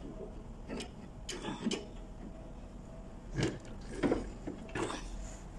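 A few irregular light knocks and clicks from the metal treadle stand of a sewing machine as hands work around its flywheel, taking off the drive belt.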